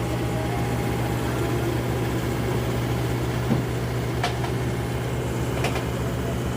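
Heavy diesel engine running steadily at a low, even pitch, with a few faint clicks.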